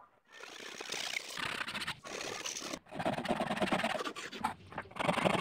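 Hand saw cutting through a wooden block, rasping in stretches that break off briefly a few times.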